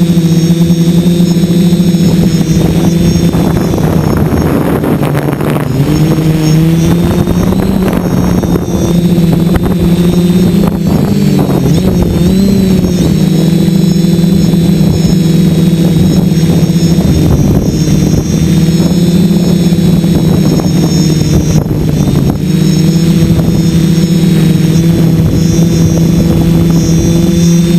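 DJI F450 quadcopter's brushless motors and propellers whining steadily in flight, loud and close to the microphone, with the pitch wavering briefly around the middle as the throttle changes.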